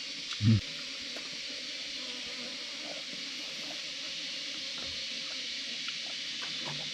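A steady, even high hiss, with one short, loud low sound about half a second in.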